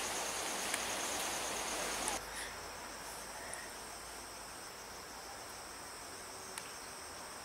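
Insects trilling in the background, a steady, high-pitched pulsing tone. For the first two seconds a louder steady hiss lies over it and cuts off abruptly.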